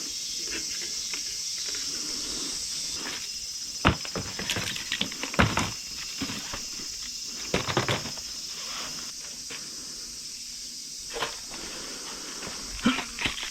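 Scattered footsteps and small crunching knocks, uneven in timing, over a steady high-pitched hiss.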